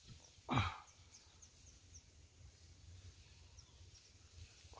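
Quiet rural outdoor background with faint, short high chirps repeated several times, like small birds. About half a second in comes one brief sound that falls steeply in pitch, like a sigh.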